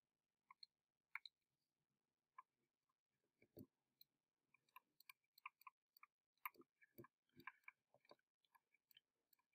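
Very faint, scattered clicks and soft taps of a stylus writing on a drawing tablet, with a few duller knocks in the second half.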